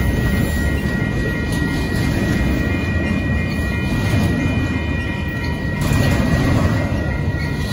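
Union Pacific double-stack intermodal freight train rolling past close by: a steady, loud rumble of wheels on the rails. A steady high ringing from the grade-crossing signal's bell runs over it.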